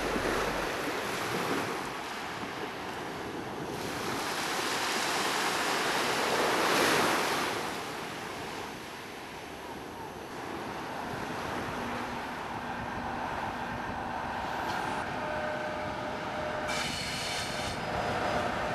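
Sea surf washing on a shingle beach, with some wind on the microphone, as a locomotive-hauled passenger train approaches on the seafront line. In the last few seconds the train's running noise grows and a steady metallic squeal from its wheels comes up.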